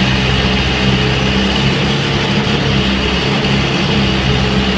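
Tennant 6650 ride-on sweeper's engine running steadily at idle.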